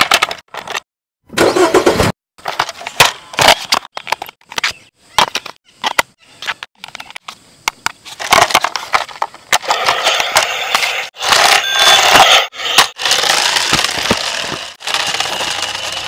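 Sharp plastic clicks and knocks as the toy remote-control school bus is handled and its battery cover snapped on. From about eight seconds in comes a denser, steadier noise as the bus runs over the asphalt.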